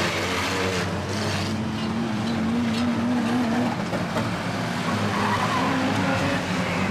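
Engines of several old vans running hard as they race in a pack round an oval banger-racing track. One engine note climbs a little between about two and three seconds in.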